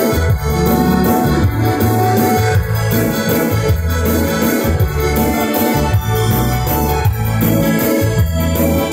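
Live band music played loud in a large hall, with a keyboard carrying sustained chords over a strong, shifting bass line.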